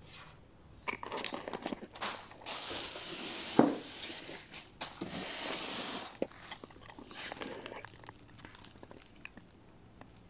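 Plastic packaging crinkling and rustling in bursts as it is handled, with one sharp knock about three and a half seconds in.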